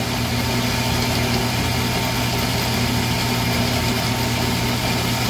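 Tormach AF50 horizontal metal-cutting bandsaw running steadily, cutting 6061 aluminum bar stock, with an even hum and no change in pitch.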